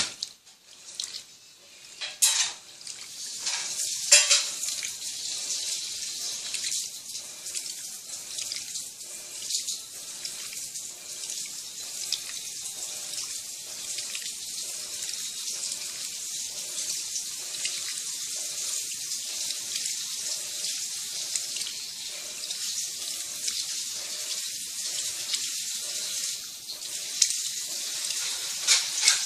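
Electrolux Turbo Economia 10 kg (LTD11) top-loading washing machine, its tub full to the high level, with water churning and splashing around two blankets in a steady hiss. A few sharp knocks come in the first few seconds.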